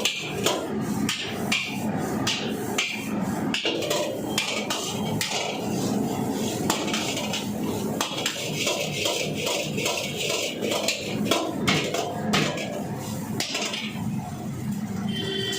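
A metal ladle or spatula repeatedly knocking and scraping against a wok while fried rice is stir-fried, about one or two knocks a second, over a steady background hiss.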